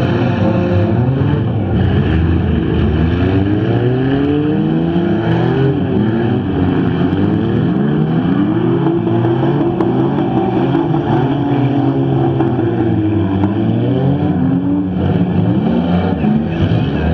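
Several stock front-wheel-drive cars racing in a bump-and-run heat, their engines revving up and down over one another.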